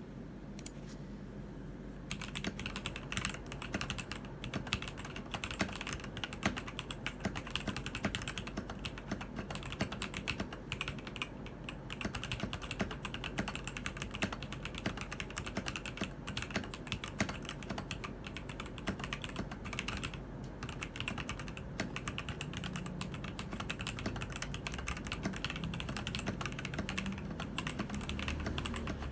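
Keydous NJ80 mechanical keyboard with TTC Gold Pink linear switches being typed on: a steady, continuous run of key clacks that starts about two seconds in.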